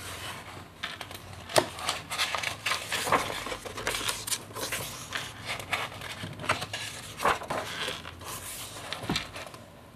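Paper pages of a picture book being turned and pressed flat by hand, rustling, with a few sharp taps and clicks among them.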